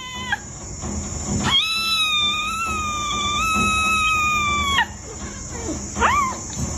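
A cat meowing: a long, drawn-out meow lasting about three seconds, between a short meow at the start and a rising-then-falling meow near the end.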